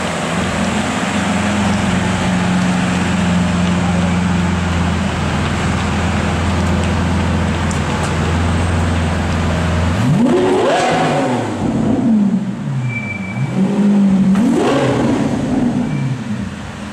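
Lamborghini Aventador's V12 engine idling steadily, then revved hard twice, about ten seconds in and again some four seconds later. Each rev climbs sharply in pitch and drops back to idle.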